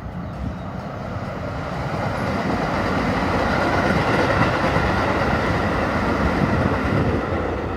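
Keikyu electric train passing over a level crossing: a steady rumble of wheels on rail that grows louder over the first few seconds, then holds.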